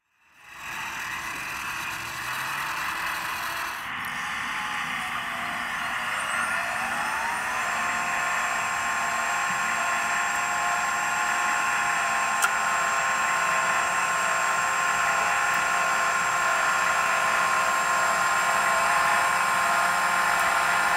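Radio-controlled model Hako street sweeper running, its small electric motors and front sweeping brushes making a steady whirring whine. A rising whine a few seconds in levels off into a steady tone, with one sharp click about halfway through.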